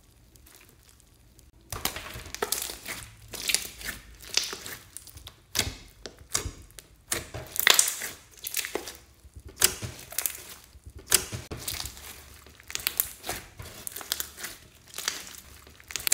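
Floam slime (glitter slime packed with foam beads) being squeezed and kneaded by hand: irregular crackling squishes in uneven bursts, starting about two seconds in.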